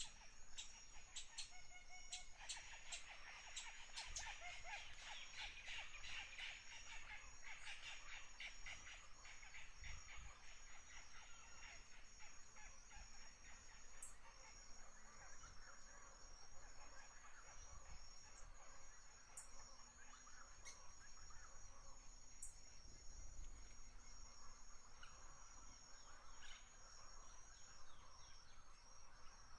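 Faint bird chirps and clicks, busiest in the first several seconds, over a steady thin high-pitched hiss.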